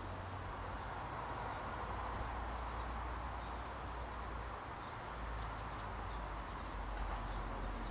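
Steady outdoor background noise, a broad hiss with a low rumble beneath it, and a few faint high chirps about two-thirds of the way through.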